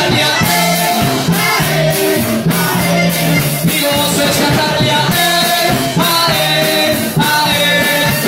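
Live band music: accordion, electric and acoustic guitars and drum kit playing an upbeat song, with a man singing into a microphone.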